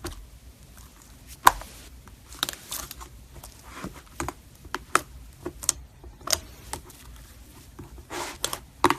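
Slime being squeezed and pressed by hand, making irregular clicks and pops, a few each second, the sharpest about a second and a half in.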